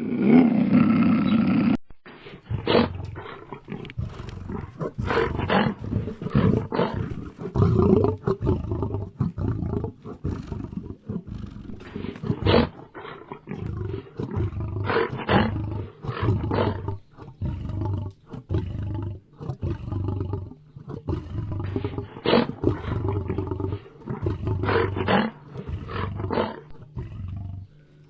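Lion roaring: a long series of short, loud calls repeated about once or twice a second. It follows a sudden cut from a steadier call in the first two seconds.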